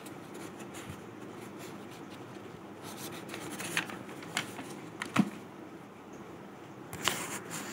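Pages of a paperback prayer book being turned by hand: soft paper rustling with a few sharp flicks of the pages, the loudest about five seconds in.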